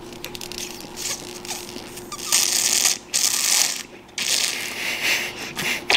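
Hard sucking through a bundle of milk flavour straws held together at once, drawing on a cup of milk in three long, hissing pulls from about two seconds in, after a quieter crackly start.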